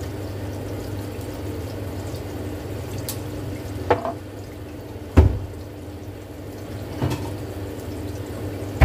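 Eggs frying in oil in a nonstick frying pan: a steady sizzle with a low hum under it, broken by a few sharp knocks, the loudest about five seconds in.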